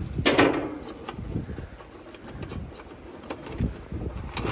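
Wind buffeting the microphone in a low, uneven rumble, with scattered small clicks and rustles of a hand handling wiring inside the heat pump's outdoor unit.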